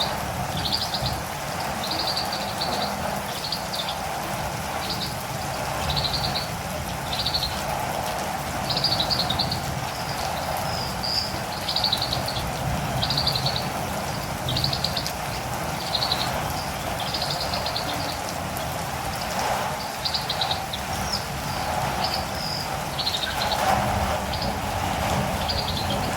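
Catirumbava (olive-green tanager) calling over and over in short, high, trilled phrases about once a second, over steady rain.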